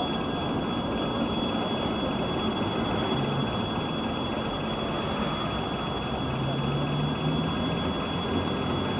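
2TE116K diesel locomotive hauling a freight train past at low speed: a steady rumble of the diesel engine and rolling train, with a steady high squeal held throughout.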